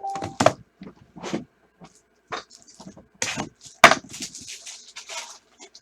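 Cards and their packaging being handled: an irregular run of taps, clicks and scrapes. A sharp knock comes just after the start, and the loudest comes about four seconds in.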